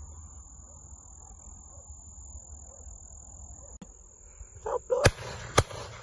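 Crickets keep up a steady high trill. Near the end come three shotgun shots in quick succession, about half a second apart, each followed by a short echo.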